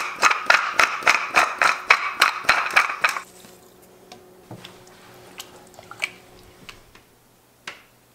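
Wooden pepper mill grinding black pepper in quick twists, about four strokes a second, stopping about three seconds in. A few faint clicks follow.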